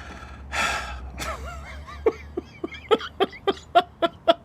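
A man laughing: a breathy gasp, then a run of short, rhythmic bursts of laughter.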